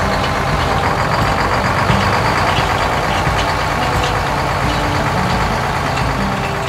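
Heavy engine sound effect for a combine harvester, running steadily as a dense rumble that eases slightly near the end as the machine leaves.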